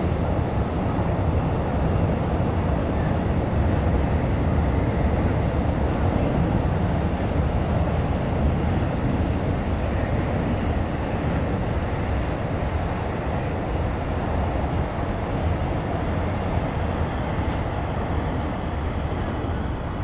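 Container freight train running across a steel truss railway bridge: a steady rolling noise of its wagons, easing slightly toward the end.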